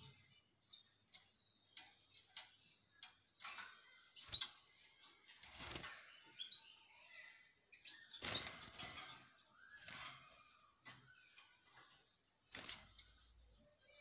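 Caged canaries chirping faintly in short, scattered calls, mixed with brief clicks and knocks from the birds moving about the cage.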